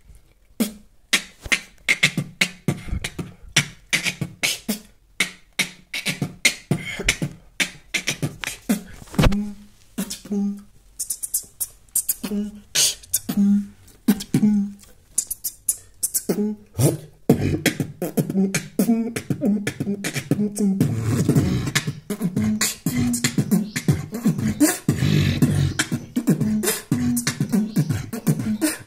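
Solo beatboxing in an Afrobeat groove: a steady rhythm of mouth-made kick, snare and hi-hat clicks. Short pitched hums start joining the beat about halfway through, and the pattern grows fuller and denser from there on.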